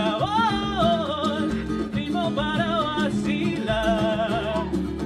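Upbeat Afro-Peruvian music performed live: a singing voice in short phrases, about a second each, over a steady rhythmic accompaniment.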